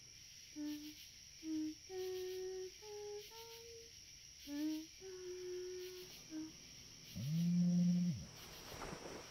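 A voice softly humming a slow, simple tune in short single notes, then one longer, lower held note about seven seconds in that slides up at its start and down at its end.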